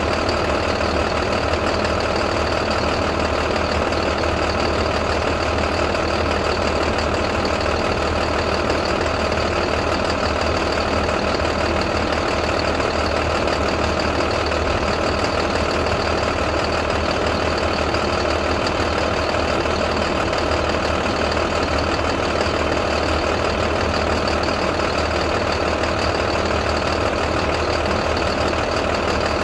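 International MaxxForce DT inline-six turbo-diesel in a school bus, idling steadily.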